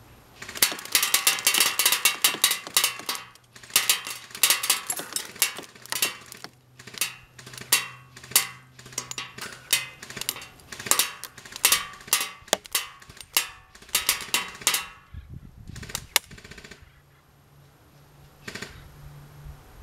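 Full-auto airsoft fire from a Cyma CM032 M14 EBR electric rifle, with BBs clattering into targets as rapid trains of sharp clicks. One burst of about three seconds comes first, then a string of shorter bursts, and a few lone snaps near the end.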